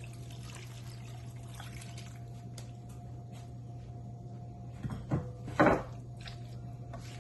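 Water poured into a pan of cooking vegetables and chicken, trickling and splashing. A couple of short, louder knocks come about five seconds in, over a steady low hum.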